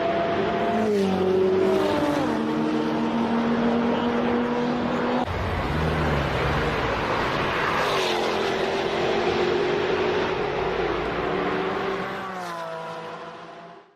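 Jaguar F-Type Project 7's supercharged V8 engine and exhaust as the car passes and pulls away. The pitch steps down a few times at gear changes and rises again near the end, then the sound fades out.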